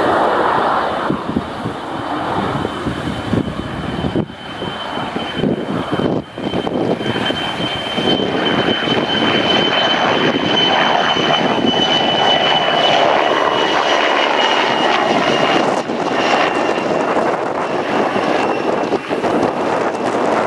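W-3A Sokol helicopter in flight, its twin turboshaft engines and rotor making a steady rushing drone with a high turbine whine over it. The whine sags slightly in pitch in the second half.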